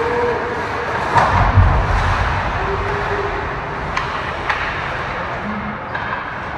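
Ice hockey players battling along the rink boards: heavy thuds of bodies against the boards between one and two seconds in, then two sharp clacks of sticks, over steady echoing arena noise.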